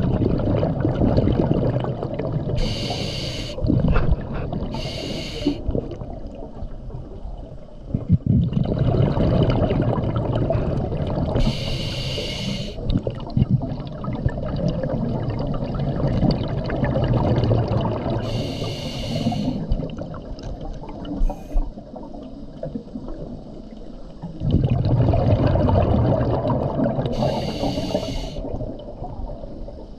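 Scuba regulator breathing underwater: short hissing inhalations every several seconds, alternating with long rumbling gurgles of exhaled bubbles.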